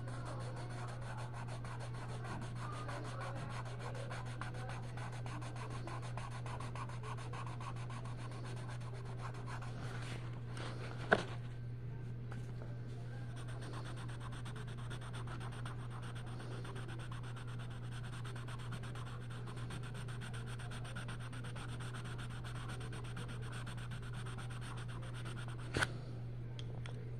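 Colored pencil scratching and rubbing on coloring-book paper in steady shading strokes, over a steady low hum. Two sharp clicks, one about 11 seconds in and one near the end.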